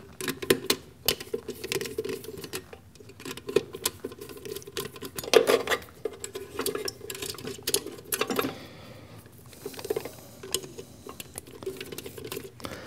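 A screwdriver working the terminal screws of a contactor and wires being pulled free inside the lathe's electrical box. It makes a steady stream of small, irregular clicks, scrapes and rattles.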